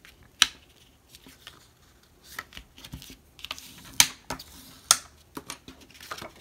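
Bone folder burnishing score lines in cardstock: light scraping strokes across the paper with a few sharp clicks, the loudest about half a second in and twice near the middle, then paper rustling as the card is handled.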